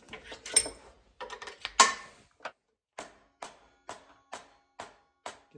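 A steel MT2 mandrel being seated in a wood lathe's headstock taper. A few irregular handling knocks come first, then a mallet taps its end six times, about two a second.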